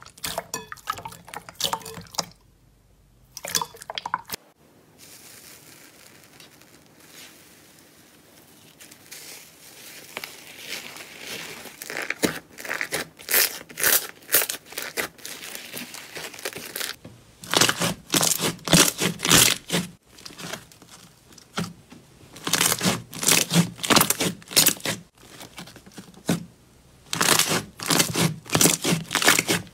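Slime being squeezed, kneaded and stretched by hand, making rapid sticky clicks, crackles and squelches in bursts. There is a short quiet break a few seconds in, then a softer stretch, and the clicking grows louder and denser from about twelve seconds on.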